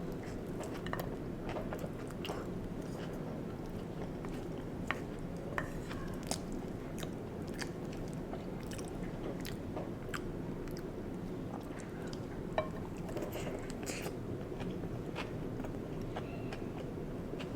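Close-miked chewing of soft stuffed sweet potato, with wet mouth sounds and scattered sharp clicks, over a steady low background hum. A few louder clicks come about five to six seconds in and again near the middle.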